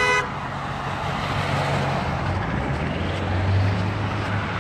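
A held car horn cuts off just after the start. Road traffic follows: cars driving past with tyre noise and engine rumble, one vehicle louder as it passes a few seconds in.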